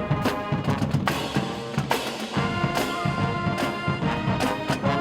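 Music with a steady drum beat under sustained pitched notes.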